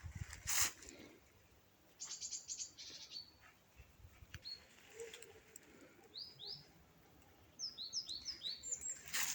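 Small songbirds chirping: a quick run of high chirps, then a few short upward-sweeping calls, with a brief rustling knock about half a second in and another near the end.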